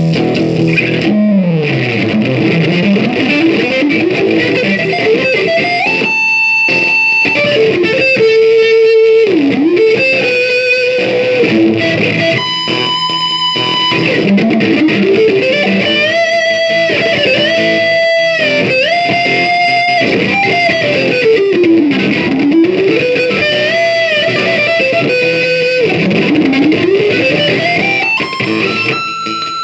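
Instrumental guitar music: an electric lead guitar plays a melody that slides up and down in long sweeping glides between held notes, over a steady band accompaniment.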